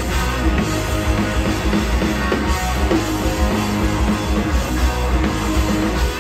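Live rock band playing loud: two electric guitars, electric bass and a drum kit together, with no break.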